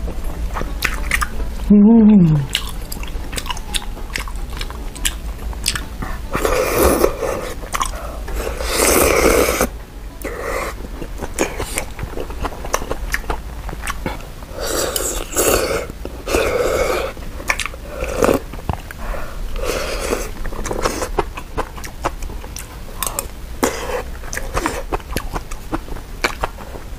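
Close-miked eating: glass noodles slurped from spicy malatang broth and chewed, with repeated wet slurps, mouth clicks and smacking. A short falling voice sound comes about two seconds in.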